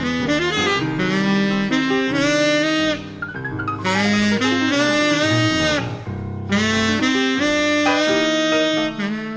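Jazz ballad recording: a saxophone carries a slow melody in long held notes, some bent and sliding in pitch, with other instruments sounding beneath it.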